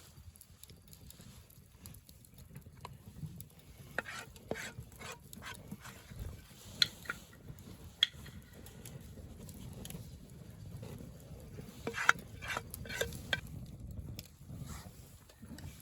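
Camp cooking: irregular light clinks and taps of a utensil stirring in cookware, in small clusters, over a faint steady low rumble.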